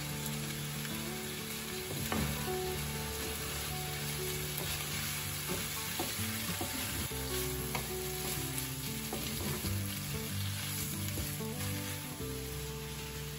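Stir-fry of pasta, shrimp and vegetables sizzling in a nonstick frying pan, stirred and turned with a wooden spatula, with a few short clacks of the spatula against the pan.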